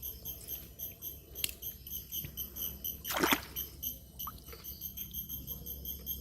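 A single water splash about three seconds in, over a steady high chirping that repeats about five times a second.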